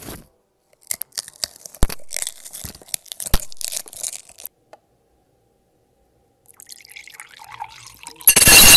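Close-miked crackles, taps and drips at a sink, played as ASMR, with sharp clicks about two and three seconds in. Near the end a sudden, very loud harsh noise cuts in and drowns everything.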